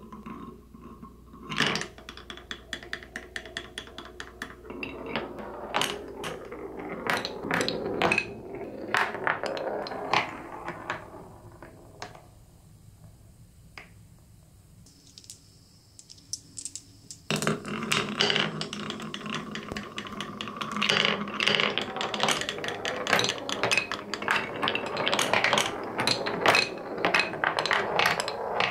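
Glass marbles rolling and clattering through a wooden block marble run: a low rolling rumble dotted with many sharp clicks as the marbles hit edges and drop between blocks. It goes quieter for a few seconds midway, then turns louder and busier from a little over halfway as several marbles run at once.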